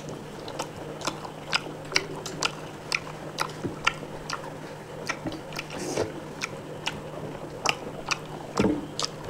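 A person chewing crunchy food close to the microphone, with sharp crunches about twice a second.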